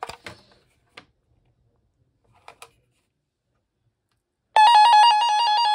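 RadioShack 12-247 weather radio sounding its alert: a loud, rapidly pulsing electronic tone that starts about four and a half seconds in and lasts about a second and a half. A few soft clicks come before it.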